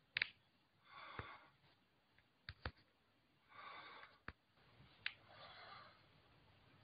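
Near silence with faint breaths close to the microphone, one about every two seconds, and a few soft clicks in between.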